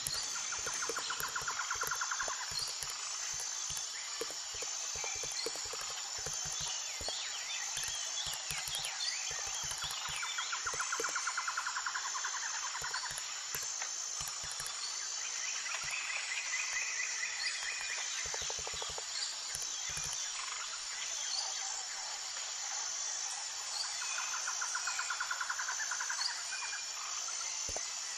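Outdoor nature ambience: a steady high-pitched drone with trilling calls of about two seconds each, heard four times.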